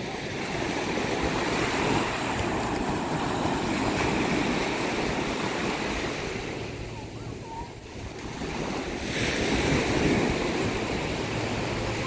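Small waves breaking and washing up a sandy beach. The surf swells loudest through the first few seconds, eases to a lull about seven seconds in, then swells again about ten seconds in.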